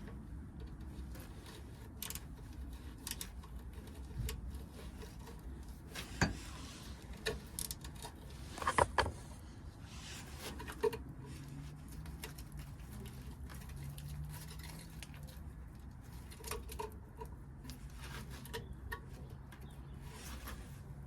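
Scattered light clicks and knocks of hand tools working at the rusted, crushed-in bolts of a shift rod inspection plate, the loudest cluster about nine seconds in.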